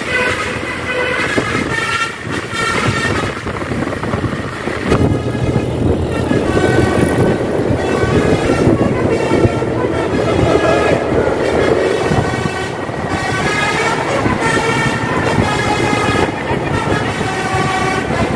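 Tour bus's Basuri telolet horn playing a tune, a run of multi-tone notes that change pitch in steps, over a steady rush of road noise that grows louder through the middle.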